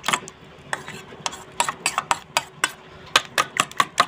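Raw eggs being beaten with a metal utensil in a stainless steel bowl, the utensil clicking against the bowl's side about four times a second, after a short pause just after the start.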